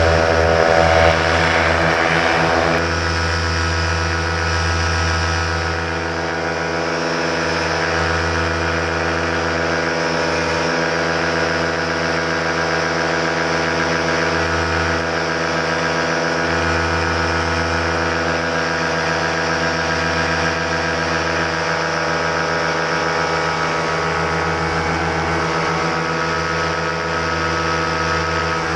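Paramotor engine and propeller running steadily in flight, a continuous drone of even tones heard close up from the pilot's harness. About three seconds in, the sound changes character.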